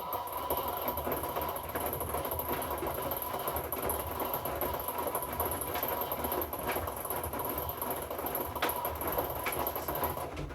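Hoover washing machine running mid-cycle: a steady mechanical noise with a steady whine and a few light knocks. It starts and stops abruptly.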